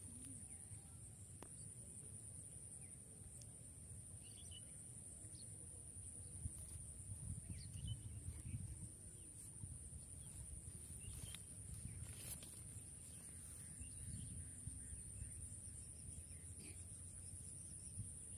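Steady high-pitched insect drone, with a low rumble underneath and a few faint bird chirps scattered through.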